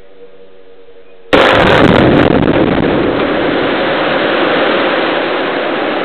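Quarry production blast in limestone and dolomite rock: a sudden loud bang about a second in, followed by a long rumble that slowly fades.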